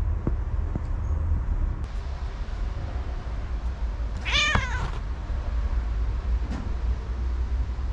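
A domestic cat meows once, a short call about four seconds in that rises and then falls in pitch. A steady low rumble runs underneath.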